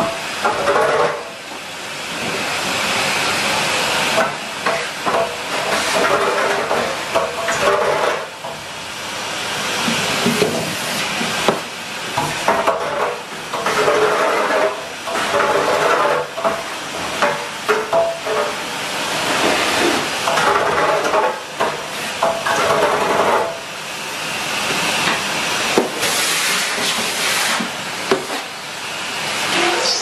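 Henry cylinder vacuum cleaner running, its motor and suction making a steady airy hiss. The sound swells and dips every few seconds as the floor tool is pushed back and forth across a laminate floor, with occasional light knocks from the tool.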